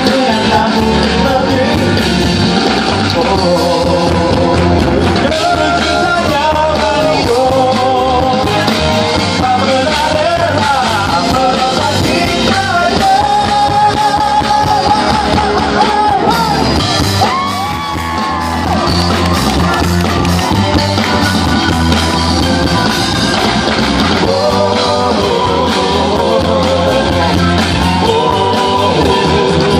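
Pop band playing live: several singers' voices over keyboards, electric guitar, bass and drums, loud and continuous, with a brief lull a little past halfway.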